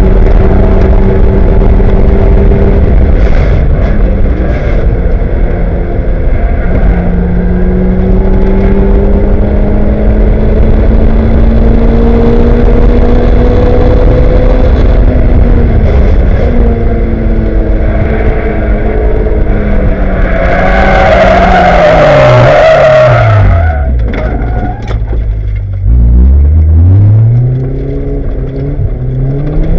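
Lotus race car engine heard from inside the cockpit, running at full throttle and climbing in pitch through the gears with drops at the shifts. About two-thirds through, a loud squealing, hissing burst lasts about three seconds as the car runs too deep into the corner and off into the sand. The revs then fall very low and climb quickly again.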